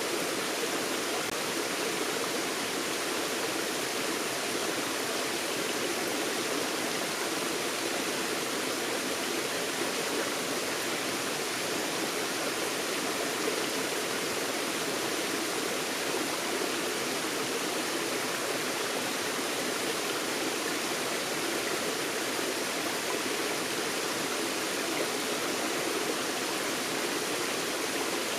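Forest stream flowing, a steady, unbroken rush of water over rocks.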